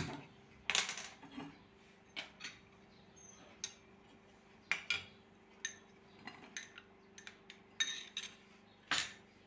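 Scattered clinks and knocks of kitchenware: glass bowls being moved and set down, a wooden spatula tapping a nonstick frying pan, and a spoon knocking mawa (milk solids) out of a glass bowl into the pan. A faint steady hum runs underneath.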